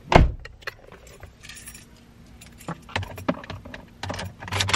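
A single heavy thump just after the start, then keys jangling and clinking with scattered small clicks inside a car, busiest near the end.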